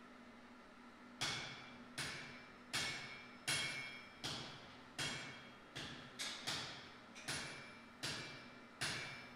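Cross-peen hammer striking red-hot steel on an anvil in steady forging blows. There are about a dozen strikes, a little faster than one a second, starting about a second in, and each rings briefly.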